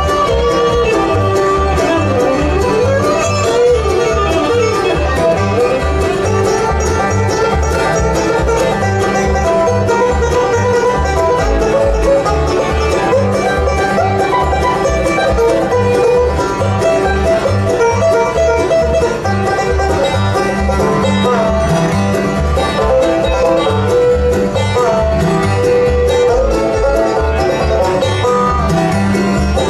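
Live bluegrass band playing an instrumental, banjo picking out front with fiddle and guitar over a steady bass beat.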